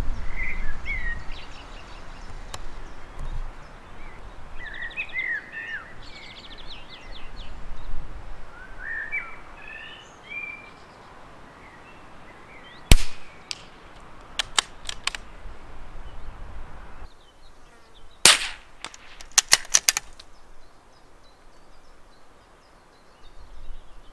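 Birds chirping, then two shots from a suppressed Anschütz .22 LR rifle firing standard-velocity ammunition, about five seconds apart. Each shot is followed by a quick run of sharp clicks.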